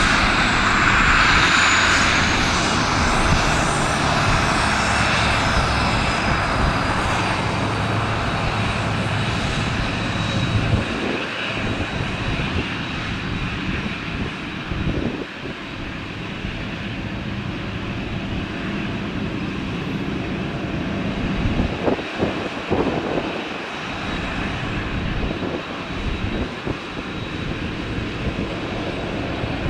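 Boeing 767-300ER jet engines running after landing. A high whine falls in pitch over the first several seconds, and the engine noise slowly eases.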